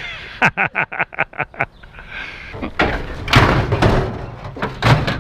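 A quick run of about eight sharp clacks within a second and a half, then heavier bangs and rattling of metal scrap being handled and settled in a truck.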